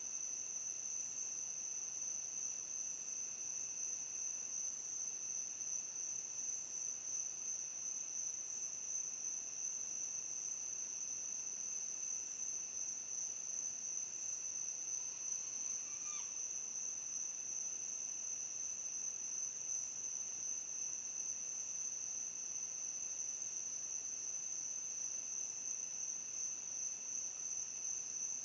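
Night insects trilling in one continuous, unbroken high-pitched drone. About halfway through, one faint, short rising call sounds over it.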